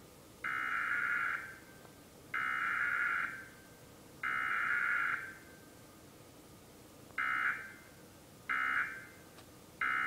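Emergency Alert System SAME data tones played through a TV speaker: three raspy digital bursts of about a second each, which are the header sent three times, then three short bursts, which are the end-of-message code. As this is a Required Weekly Test, no attention tone follows.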